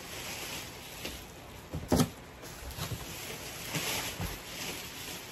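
Clear plastic packaging rustling as a wrapped bag is handled inside a cardboard box. A single sharp thump comes about two seconds in.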